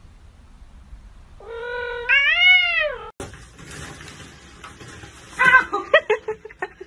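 A kitten's long meow, rising and then falling in pitch, about a second and a half in. Near the end comes a quick run of short, loud cries.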